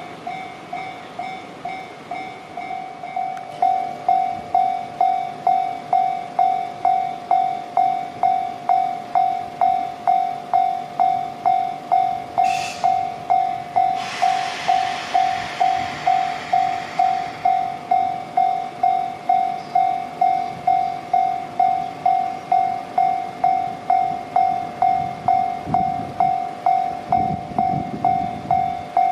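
Railway level-crossing warning bell ringing, an electronic ding repeating about twice a second, louder after a few seconds. A short hiss comes about halfway through, and a low train rumble near the end.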